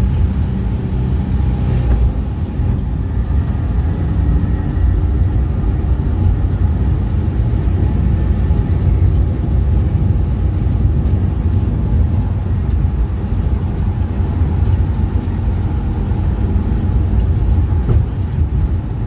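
VW single-cab pickup being driven: its air-cooled flat-four engine running steadily under way, with road noise.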